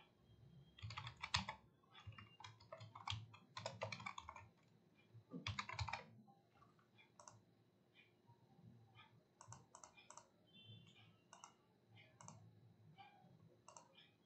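Typing on a computer keyboard in quick bursts for about the first six seconds, then scattered single mouse clicks.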